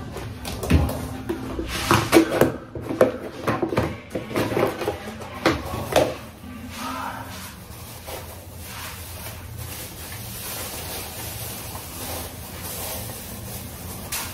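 Knocks and clatter of kitchen things being handled and set down on a counter around a blender, a quick run of them in the first six seconds, then a quieter steady background with faint music.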